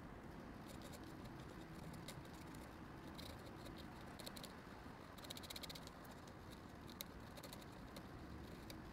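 Faint scratching and tapping of a pen tip on paper, in short strokes and small clusters, with one sharp tick near the end, over a steady low hiss.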